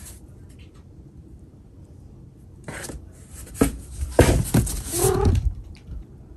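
A cat scrabbling inside a cardboard box: rustling and scraping of cardboard in a burst starting about three seconds in, with a short cat cry near the end.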